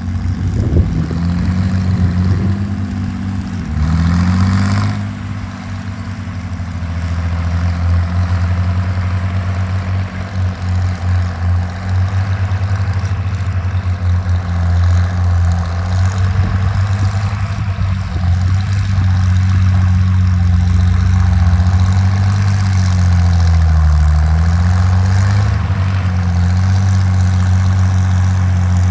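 Farmall 560 tractor's six-cylinder engine running steadily under load while pulling a plow through the soil. Its pitch sags and recovers a couple of times as the engine lugs.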